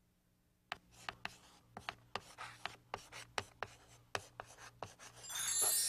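Chalk scratching and tapping on a chalkboard in a quick run of strokes as a word is written out, then a bright shimmering chime that swells near the end.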